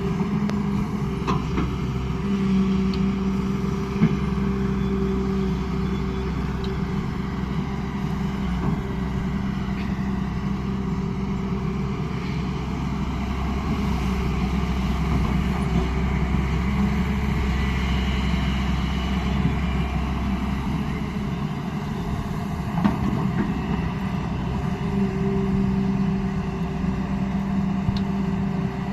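Hyundai R210 Smart Plus excavator's diesel engine running steadily, its hum swelling for a few seconds near the start and again near the end. The deep low rumble drops away about two-thirds of the way through, and there are two sharp knocks, one a few seconds in and one past the middle.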